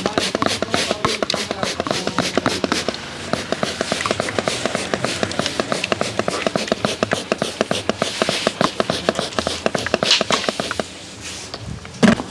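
Rapid, even tapping massage: a barber's hands striking a customer's head or back several times a second, paused briefly near the end before one louder sharp smack.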